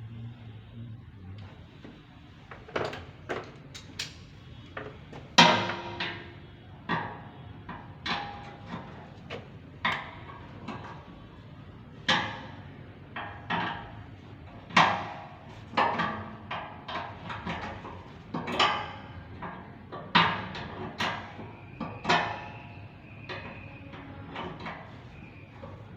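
Irregular metallic clanks and knocks, about one a second, each ringing briefly: metal tools or parts striking metal.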